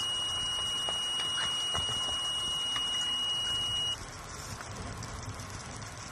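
Electronic carp bite alarm sounding one steady high tone as a carp takes line on a run, cutting off suddenly about four seconds in when the rod is lifted off the pod.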